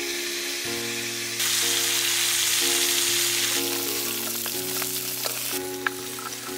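Parshe (mullet) fish pieces sizzling as they fry in hot oil in a wok, the sizzle swelling louder about a second and a half in and easing a couple of seconds later. Background music plays over it.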